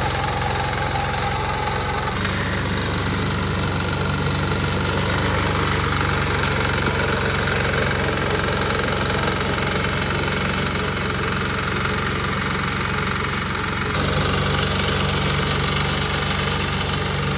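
Mini tiller reaper's small engine running steadily, its tone shifting abruptly about two seconds in and again near the end.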